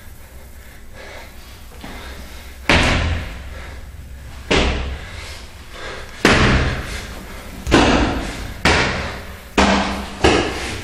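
Seven heavy thuds, starting about three seconds in and coming every one to two seconds, each ringing out briefly off hard cinderblock walls: blows landing in a staged beating.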